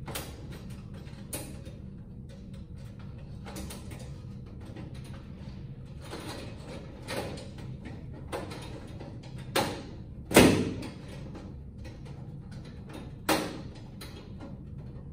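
Sheet-metal ballast cover of a fluorescent troffer being handled and pressed into place: scattered clicks and scrapes, with a few sharp metal knocks. The loudest knock comes about ten seconds in.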